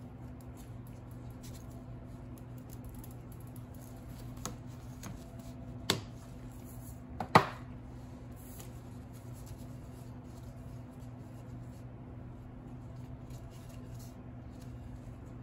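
Cake decorating tools being handled on a work surface: soft scraping and light clicks, with two sharp knocks about six and seven seconds in, the second louder and ringing briefly. A steady low hum runs underneath.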